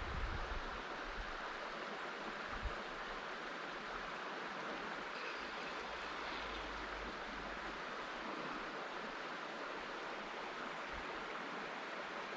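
Steady rushing of river water flowing over a riffle.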